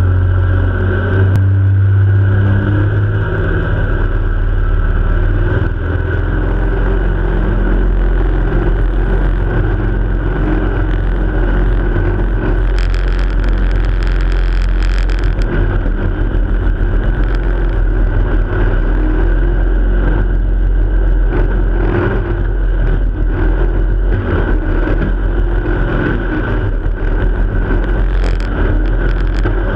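Jet boat's engine running steadily at speed, a deep drone under the rush of water and wind, with a louder burst of hiss about halfway through.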